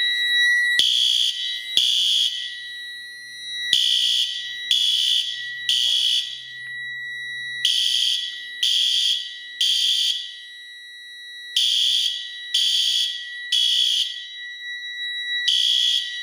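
Fire alarm sounding the temporal-three evacuation pattern: sets of three blasts about a second apart, with a pause between sets, over a steady high tone. It was set off from a manual pull station, signalling zone 2.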